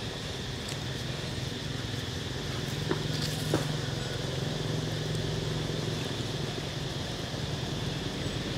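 Outdoor background noise: a steady low hum that grows louder around the middle, with a steady high hiss and a few faint clicks.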